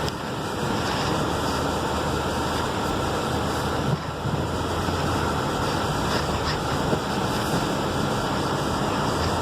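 A vehicle driving slowly through deep snow, heard from inside the cabin: steady engine and tyre noise.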